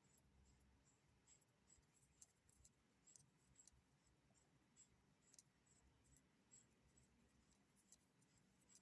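Near silence, with faint irregular small clicks and taps of metal parts being handled and seated.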